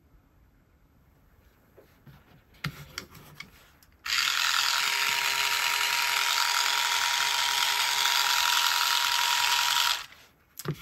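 Two small yellow TT plastic gear motors spinning the robot's wheels forward: a steady whirring gear whine that starts about four seconds in and cuts off suddenly about six seconds later. A few light clicks come before it.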